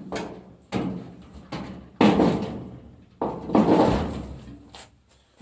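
Sheet-metal top panel of a Whirlpool dryer being pried free and lifted, a series of sudden clunks and rattles that each trail off, the loudest about two and three seconds in.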